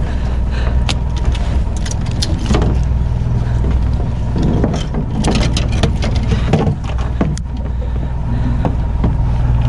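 A fishing boat's engine running steadily with a low drone, with short knocks and clicks scattered over it.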